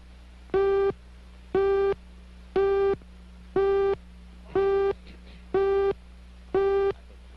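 Electronic countdown beep tone from a studio slate: a buzzy beep at one steady pitch, repeated seven times about once a second, each beep about a third of a second long, over a low steady hum.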